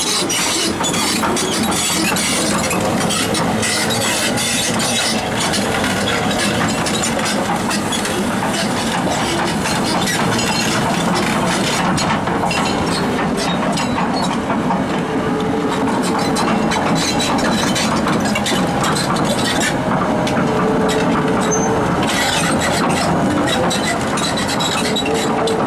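Daewoo S370LC crawler excavator running and travelling on its steel tracks: a steady engine sound with continual metallic clanking of the track links and some squealing near the end.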